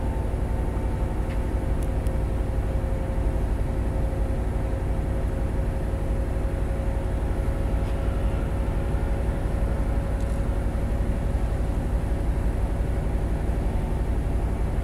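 1962 Lincoln Continental convertible's power top mechanism running as the top folds down into the trunk: a steady motor hum over the 430 V8 idling.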